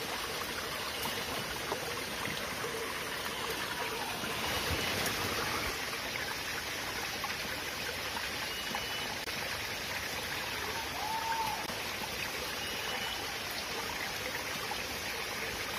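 Small, shallow forest stream running steadily over and between rocks, a continuous gentle trickling rush.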